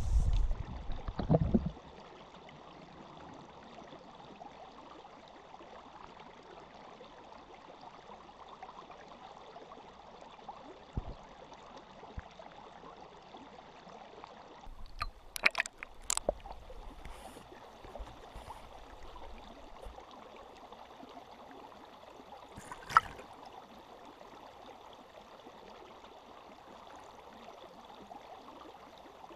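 Creek water heard underwater through a GoPro's waterproof housing: a steady, muffled hiss of flowing water. A loud low rumble with thumps fills the first two seconds, and a few sharp clicks come about halfway through and again about two-thirds in.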